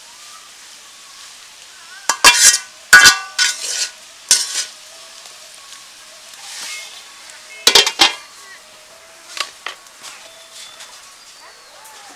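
A metal spatula scraping and knocking against an aluminium karai as bitter gourd and egg are stirred and fried, over a faint sizzle. The strokes come in short bunches, loudest two to three seconds in and again near eight seconds.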